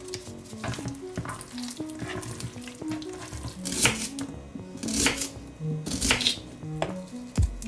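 Kitchen knife slicing through a peeled onion onto a plastic cutting board: three crisp cuts about a second apart in the second half, over background music.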